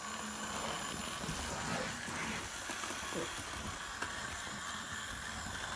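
Hornby Railroad A1 'Tornado' OO gauge model locomotive running on sectional track: a steady whir from its motor and wheels, with a few faint clicks.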